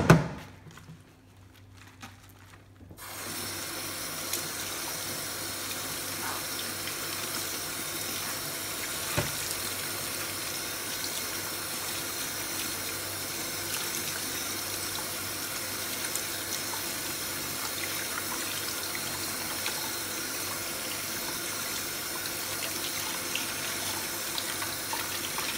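A single knock at the start, then from about three seconds in a kitchen tap runs steadily, its water splashing over napa cabbage as the salt is rinsed off by hand in a colander in the sink.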